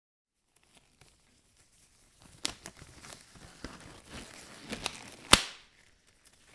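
Rustling, crackling handling noise with scattered sharp clicks, starting about two seconds in, with one loud click about five seconds in.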